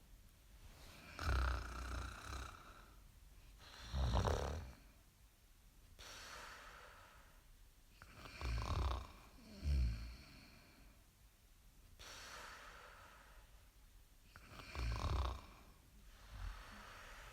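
Snoring: loud, low, rattling snores about six times, the loudest near the start, middle and end, with softer breathing sounds between them.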